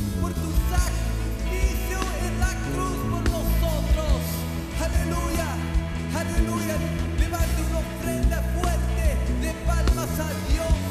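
Live church worship band playing with a steady beat, keyboard, electric guitars and violins, with a man singing into a handheld microphone over it.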